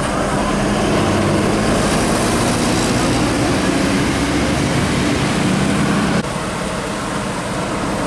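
Mercedes-Benz OH 1526 coach passing close, its diesel engine running steadily with tyre noise. The sound drops off suddenly about six seconds in, leaving quieter road noise.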